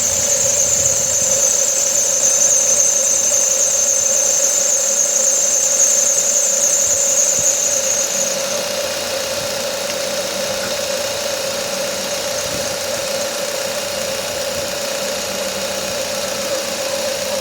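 Ford Courier's accessory drive belt squealing with a steady high-pitched tone over the running engine. About halfway through the squeal stops, as candle wax rubbed onto the slipping belt takes effect, leaving the engine running.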